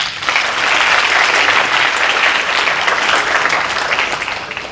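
Audience applauding: many hands clapping together, a dense steady patter that starts suddenly and dies down near the end.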